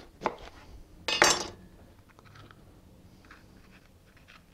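A chef's knife cutting a red bell pepper on a wooden cutting board: a sharp knock just after the start, then a louder short clatter of the knife on the board about a second in. Faint small clicks and rustles follow as the seeds are pulled out of the pepper by hand.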